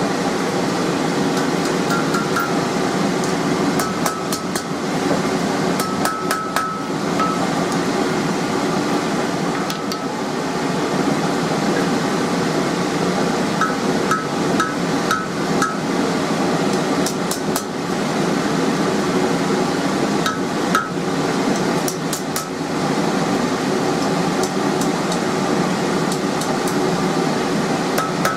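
Hammer blows on red-hot mild steel against an anvil, coming in irregular groups, sometimes several quick strikes in a row, with a short metallic ring after some of them. A steady background drone runs underneath.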